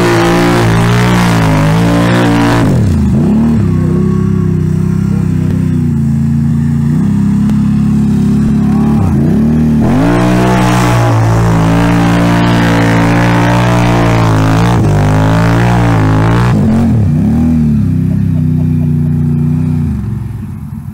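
ATV engine held at high revs while the quad spins its tyres through deep mud, the pitch dropping as the throttle is let off and sweeping back up three times. The engine noise falls away near the end.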